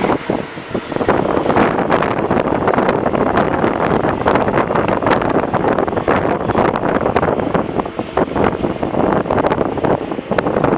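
Wind buffeting the microphone at the window of a moving NS Sprinter (SGMm) electric train, over the train's steady running noise with many short knocks.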